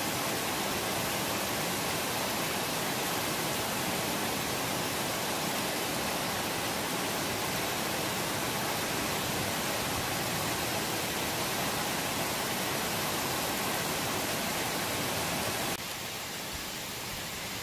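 Steady hiss of heavy rain pouring down during a thunderstorm. The hiss drops to a lower level about 16 seconds in.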